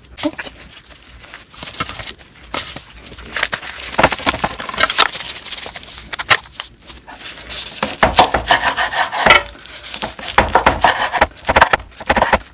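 Kimbap being made by hand: a wooden spatula scraping over the fillings, then the bamboo rolling mat rustling and rubbing as the roll is pressed. Near the end a knife cuts through the seaweed-wrapped roll onto a wooden cutting board in a run of quick clicks.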